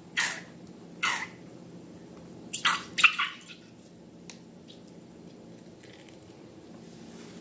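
Slime squelching and squishing in short wet bursts, three times in the first three seconds or so, then a few faint clicks over a low steady hum.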